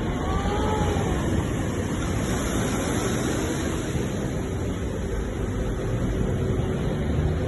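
Ocean surf: a steady, unbroken wash of sea waves.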